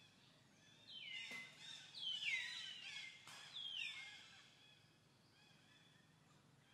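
An animal calling three times, about a second apart, in high cries that each slide down in pitch and then hold briefly, over faint softer chirping.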